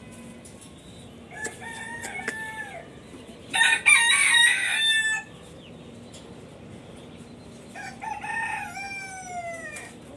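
Roosters crowing three times. There is one crow about a second and a half in, a much louder, harsher one around four seconds, and a third near the end that trails off in falling notes.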